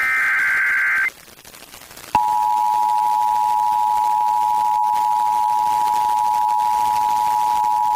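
Emergency Alert System broadcast: the last burst of the screeching SAME digital header, about a second long, then a short gap and a click, then the steady two-tone EAS attention signal that holds on.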